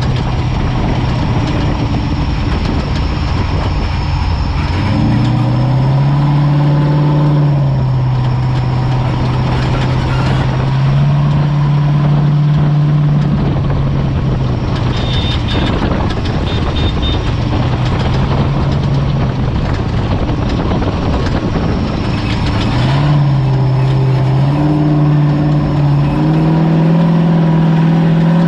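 Off-road race vehicle's engine running under a steady wash of driving noise, its speed stepping up and down between two settled levels several times. A brief run of high beeps sounds about halfway through.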